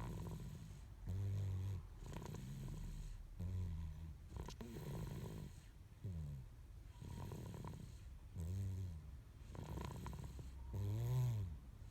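Steady, rhythmic snoring in sleep: a pitched snore about every two and a half seconds, five in all, with a softer rasping breath between each. The last snore, near the end, is the loudest.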